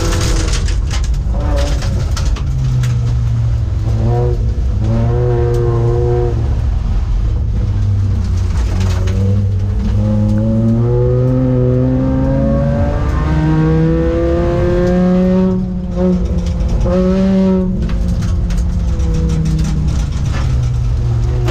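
Volvo 850's five-cylinder engine at full racing throttle, its pitch climbing again and again and falling back at each gear change, with a short lift off the throttle about sixteen seconds in.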